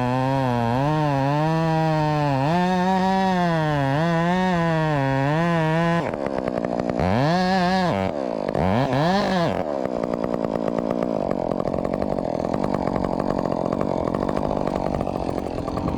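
Modified Husqvarna 562XP two-stroke chainsaw cutting wood under load, its pitch wavering as the engine bogs and recovers. About six seconds in the sound changes: the revs rise and fall twice, then settle into a steadier, noisier running note that cuts off suddenly at the end.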